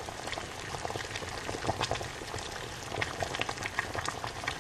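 Steady, dense bubbling and crackling of liquid, full of small sharp ticks.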